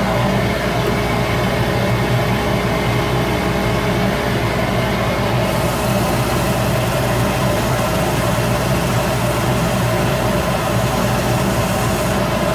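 Shop Fox W1836 midi wood lathe running steadily with a constant hum. A higher hiss joins about halfway through.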